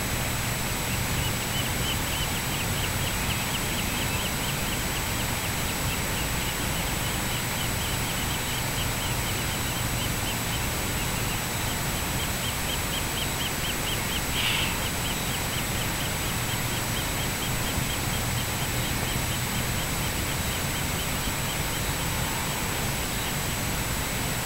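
Steady distant hum and hiss of outdoor airport surroundings, with a rapid, even chirping of about five chirps a second through most of it, and one louder call a little past the middle.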